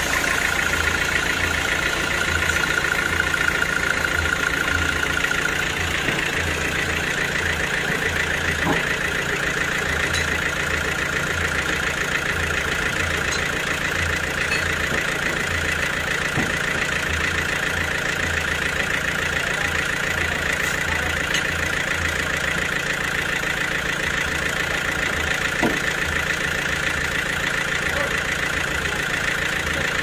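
A band sawmill's engine running steadily at idle between cuts, with a few faint knocks.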